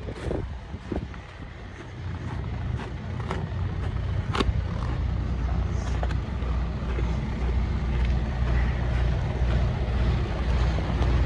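Truck engine running steadily with a low rumble that gets louder about two seconds in. A single sharp click comes through about four seconds in.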